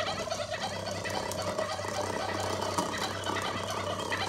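Cartoon turkey gobbling sound effect from the Sphero robot-ball app, played through an iPad's speaker: one long, rapid warbling gobble.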